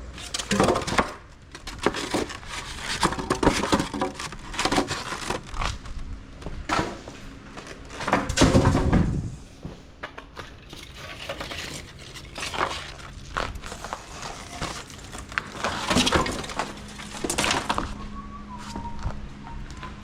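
Irregular clanking and clattering of tools and metal equipment being handled. There are many sharp knocks and clinks, the heaviest burst about eight seconds in, and a faint steady hum comes in near the end.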